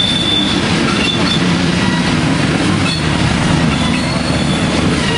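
Freight train of coal hopper cars rolling past, a steady heavy rumble of wheels and cars, with thin high-pitched wheel squeal coming and going as the wheels grind through the sharp curve.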